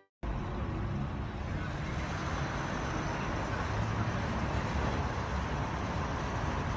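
Street traffic noise: a steady hum of cars on a city street, cutting off suddenly near the end.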